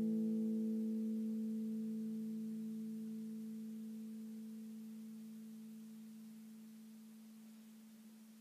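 Classical guitar's final chord ringing out and slowly dying away, the higher notes fading first until a single note is left.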